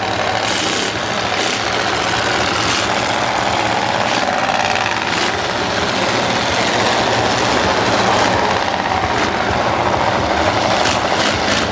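Several demolition-derby cars' V8 engines running hard together, with a few short bangs of cars colliding.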